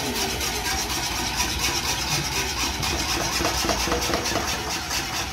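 Wire balloon whisk scraping rapidly round an aluminium frying pan as it beats brown sauce powder into hot liquid, a quick, steady run of scraping strokes with the liquid sloshing. The fast whisking keeps the powder from forming lumps.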